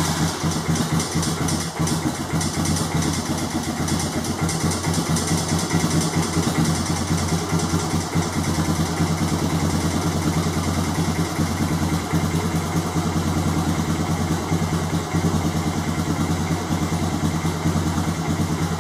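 Honda Recon 250 ATV's single-cylinder four-stroke engine idling steadily on choke just after a cold start, warming up on a freshly installed carburetor.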